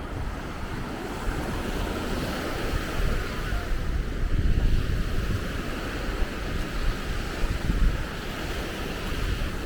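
Ocean surf breaking and washing ashore, swelling louder about halfway through, with wind rumbling on the microphone.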